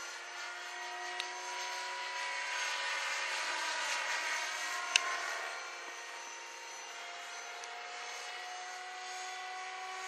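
Radio-controlled helicopter in flight, making a steady whine of several tones that drift slightly in pitch. It swells a little toward the middle and fades somewhat after about six seconds as it moves about. A single sharp click comes about five seconds in.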